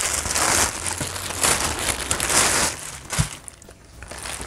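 Clear plastic storage bag crinkling and rustling in irregular bursts as a snapback cap is pulled out of it, with a short soft knock about three seconds in.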